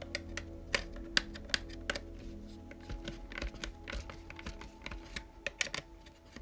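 Irregular light clicks and ticks of a screwdriver turning a screw into the plastic rear gearbox housing of a Tamiya TT02D RC car chassis, a few clicks a second. Soft background music plays under it.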